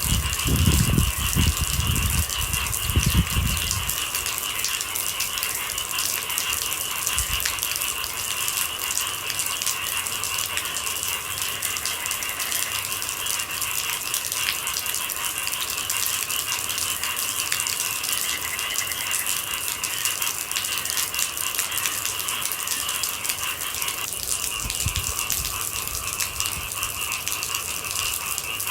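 Rain pattering steadily, with a steady high-pitched hum beneath it and a few low thuds in the first few seconds.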